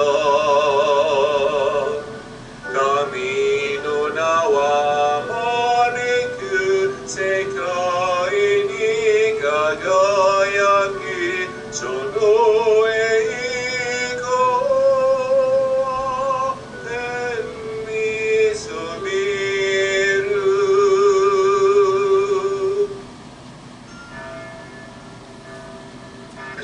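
A hymn sung by one voice with a strong vibrato, played as a recording. The singing stops about 23 seconds in, and what follows is much quieter.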